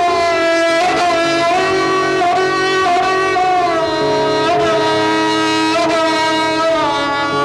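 Sarangi playing a slow melody with slides and ornaments between notes, over a steady drone.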